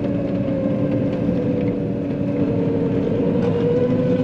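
John Deere 9500 combine's diesel engine and drivetrain running at road speed, heard from inside the cab: a steady drone with a constant whine. The whine sags slightly in pitch and then rises again near the end.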